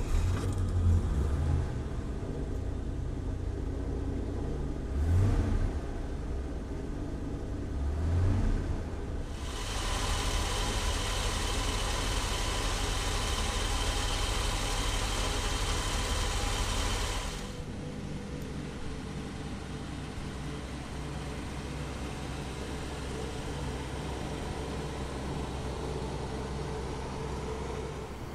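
Ford 170 cubic-inch inline-six engine idling steadily, revved briefly twice about five and eight seconds in. For about eight seconds in the middle it sounds louder and brighter, with the engine cover inside the cab open.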